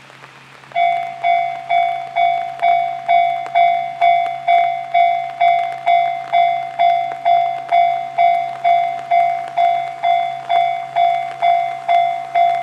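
Japanese railway level-crossing warning bell starting about a second in and ringing steadily at about two strikes a second, each clang fading before the next: the crossing signalling an approaching train.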